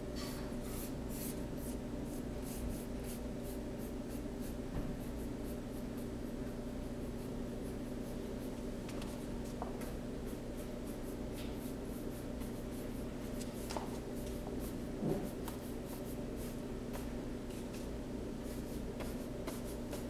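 Flat paintbrush stroking thick wet paint across a cardboard board: a run of short, scratchy swishes, quick and close together for the first few seconds, then scattered. A steady low hum sits underneath.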